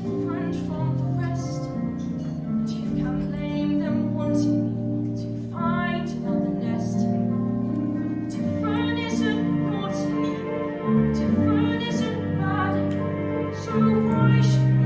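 Musical-theatre song: a voice singing long held notes with vibrato over steady instrumental accompaniment.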